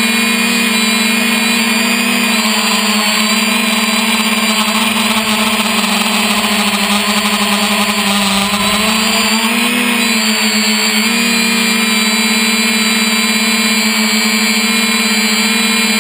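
3DR Iris+ quadcopter's motors and propellers buzzing steadily, picked up by the camera on board. About halfway through, the pitch dips and then climbs back as the motors slow and speed up while the drone manoeuvres.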